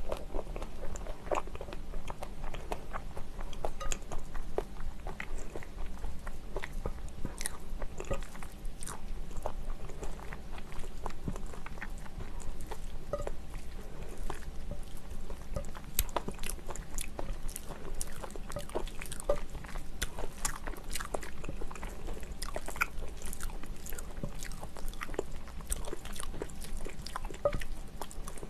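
Close-miked chewing and mouth sounds of a person eating spicy curry and rice, with many small sharp clicks and crackles. A metal spoon stirs and scrapes through the curry in a glass bowl.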